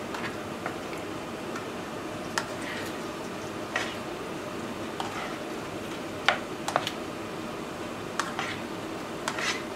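A plastic spatula stirring and scraping ground-meat tomato sauce in a non-stick frying pan, with several sharp clicks where it knocks against the pan, over a steady background noise.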